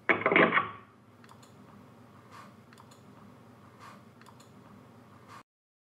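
A short spoken word at the start, then faint, irregular computer clicks, about eight of them, over low room noise. The recording cuts off to silence near the end.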